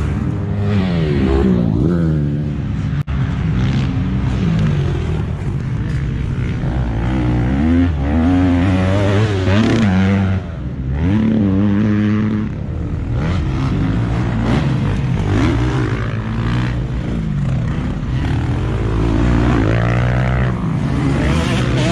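Motocross dirt bike engines revving hard and easing off again and again, pitch rising and falling, with more than one engine heard at once.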